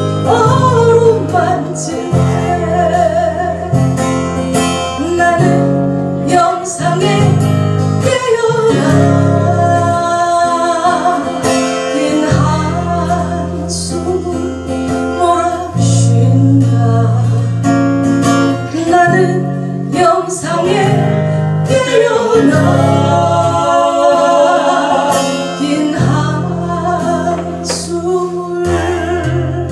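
A song sung with guitar accompaniment, a singing voice over strummed and plucked guitar and steady bass notes.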